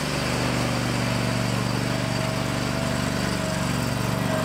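Toro Titan Max zero-turn mower's engine running steadily as the mower drives forward.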